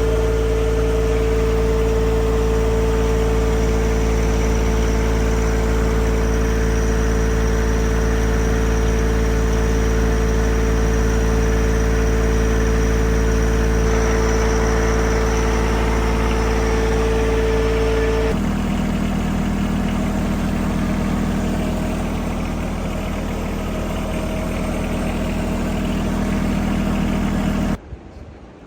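A motor-driven machine's engine running steadily and loudly, with a constant humming pitch. About two-thirds of the way through it shifts abruptly to a lower steady pitch.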